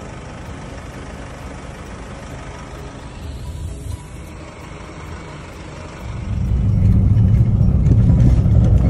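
Motor vehicle engine running with a steady low rumble, which grows much louder about six seconds in.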